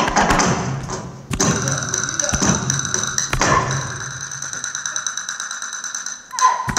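Flamenco castanets played in fast rolls, a dense rattling clatter, with a few sharper strikes about a second apart in the first half.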